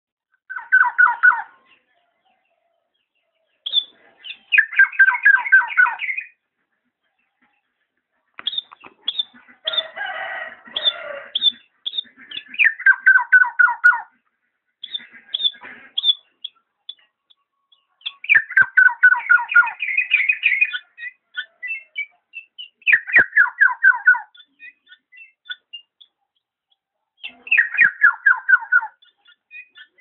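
Black-naped oriole (kepodang) calling: about six bursts of rapid notes, each falling in pitch and lasting a second or two, with a harsher, rasping call about a third of the way through and scattered short chirps in between.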